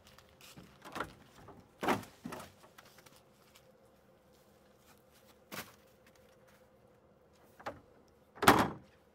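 Plastic wheeled trash bin lid being opened and handled: a few scattered knocks and thumps, the loudest near the end.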